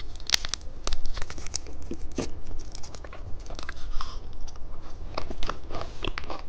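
Plastic wrapper of a popping-candy packet crinkling and tearing as it is opened: a dense run of sharp crackles and rustles.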